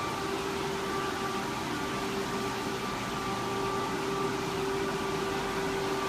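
Electric inflation blower running steadily, keeping an inflatable enclosure inflated: a continuous rush of air with a steady hum.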